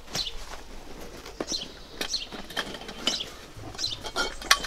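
A black fabric carry bag and the studio gear being pushed into it rustling, with light clicks and knocks and a sharper knock near the end. Birds chirp now and then.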